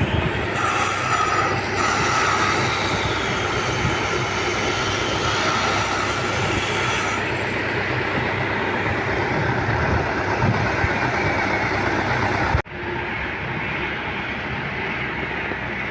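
Heavy machinery running steadily, with a high metallic squeal held for several seconds near the start. The sound breaks off for an instant about three quarters of the way through, then carries on.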